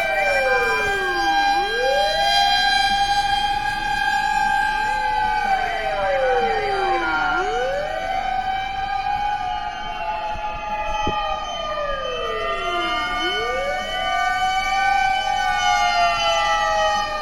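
Sirens of several Japanese fire engines sounding together. Each holds a long high wail, then drops steeply and swings back up, about every six seconds, and the sirens overlap at different pitches.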